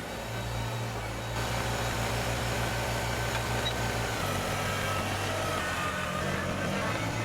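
Kubota BX compact tractor's diesel engine running steadily, its note shifting about four seconds in.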